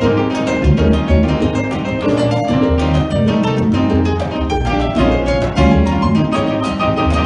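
Live jazz band playing an instrumental bossa nova passage: acoustic guitar, double bass, piano and hand percussion over a steady pulsing bass line, with no singing.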